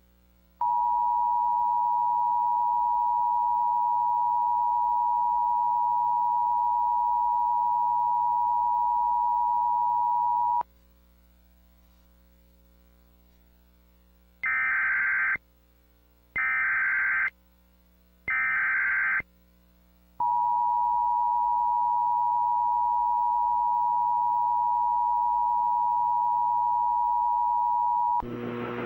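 Emergency Alert System attention signal, a steady two-tone beep of about 853 and 960 Hz, held for about ten seconds. A few seconds later come three short screeching SAME data bursts about a second each, then the attention tone again for about eight seconds.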